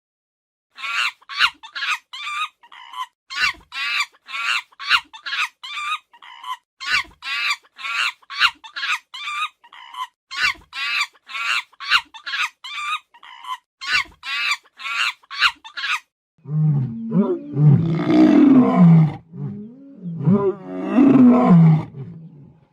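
Animal calls: a rapid series of short, high-pitched calls, about two a second, then from about sixteen seconds in two long bouts of deep roaring.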